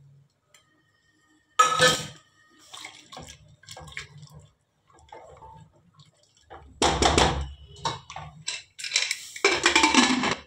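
Clattering and scraping in an aluminium pressure cooker as sambar is stirred with a silicone spatula. Near the end come louder metal-on-metal knocks and scrapes as the cooker's aluminium lid is fitted on.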